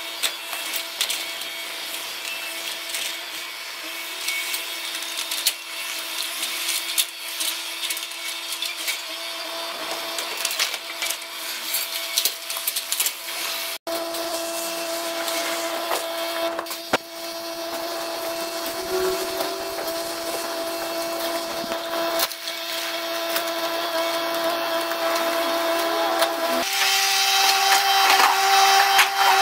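Yanmar mini excavator running with a steady hydraulic whine while its hydraulic jaw attachment crushes brick walls and a concrete staircase, with masonry cracking and broken bricks clattering down.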